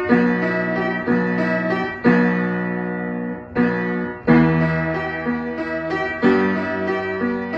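Upright piano played by hand at a slow pace: chords with low bass notes struck about once a second and left to ring, with a brief break a little over halfway through.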